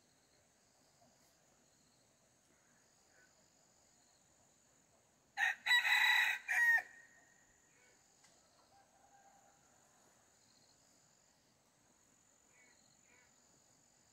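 A rooster crows once, a loud pitched call of about a second and a half that breaks into segments and falls at the end, about five seconds in. Behind it runs a faint, steady high-pitched drone.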